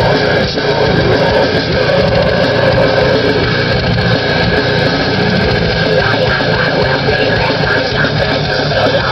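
Loud heavy rock music with distorted guitars, played on a car stereo and heard inside the car's cabin.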